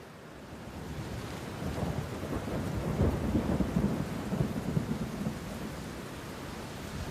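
A deep, rolling rumble like distant thunder, swelling about a second in, strongest between about three and five seconds, then easing off over a steady hiss.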